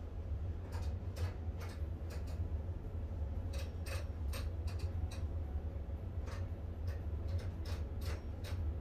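Irregular light clicks and clinks of dumbbells being picked up and handled, some in quick pairs, over a low steady hum.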